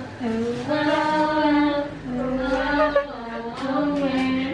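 A woman singing a short melody in long held notes, each lasting about a second.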